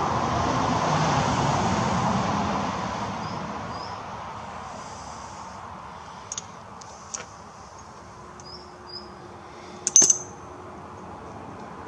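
A vehicle passing on the road, its tyre and engine noise swelling and fading over the first few seconds. Then a few sharp clicks, the loudest cluster about ten seconds in.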